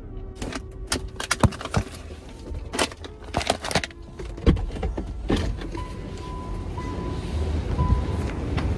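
Clicks, knocks and rattles of handling inside a car (keys and door), over a low rumble. From about six seconds in, an electronic chime tone repeats about once a second.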